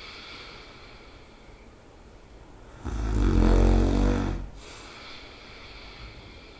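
A person snoring in sleep: one loud snore with a pitched, vibrating rattle about three seconds in, lasting about a second and a half, between quieter breaths.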